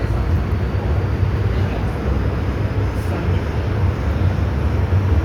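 MTR M-train electric multiple unit heard from inside the carriage while running between stations, a loud steady low rumble of wheels on rail and running gear.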